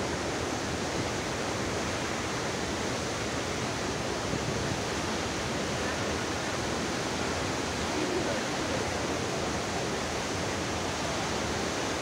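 Steady, even rush of Athirappilly Falls, a large waterfall pouring onto rocks.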